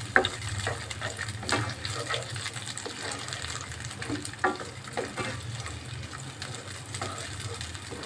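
Cashews sizzling gently in hot ghee in a nonstick frying pan, stirred with a spatula that scrapes and taps against the pan now and then.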